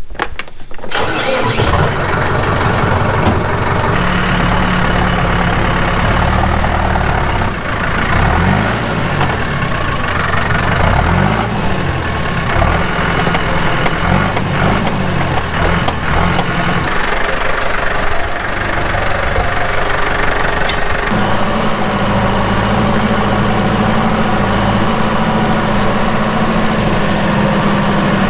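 A vehicle engine starting about a second in and running, its revs rising and falling several times in the middle, then holding steadier at a higher speed near the end.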